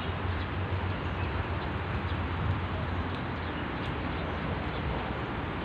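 Steady outdoor background noise with a constant low hum underneath.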